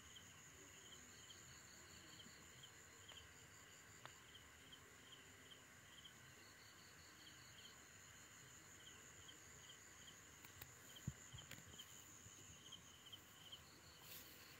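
Faint night insects: a steady high-pitched buzz with a cricket chirp repeating about twice a second. A few soft clicks come near the end.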